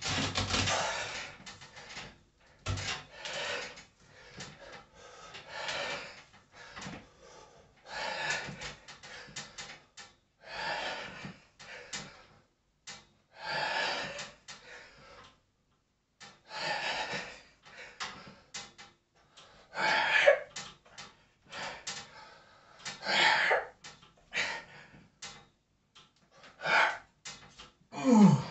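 A man's hard, noisy breaths during bodyweight chin-ups: one forceful exhale about every three seconds, with each rep. Scattered light clicks come between the breaths.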